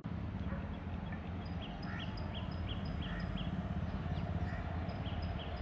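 A bird calling with a quick run of short, high chirps, about three a second, with a brief pause about four seconds in, over a low steady rumble.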